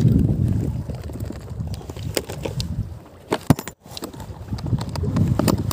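Wind buffeting the microphone in a loud, swelling low rumble, with a few sharp clicks and knocks from the plastic cooler box being handled about two to three and a half seconds in. The sound drops out for a moment about four seconds in.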